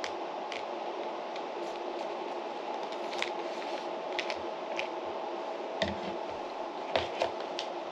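Scattered light clicks and taps of chopsticks against a plastic aloe pouch and a bowl as aloe pieces are picked out into yogurt, over a steady background hum.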